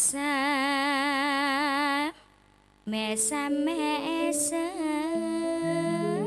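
A woman singing a Javanese langgam into a microphone: one long held note with wide, even vibrato, a brief break about two seconds in, then a phrase with quick ornamented turns over steady backing notes.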